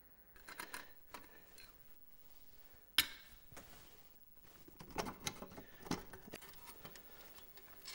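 Scattered metal clicks and clatters as the sheet-metal housing of a vintage Rotax snowmobile engine is worked loose by hand. There is one sharp knock about three seconds in.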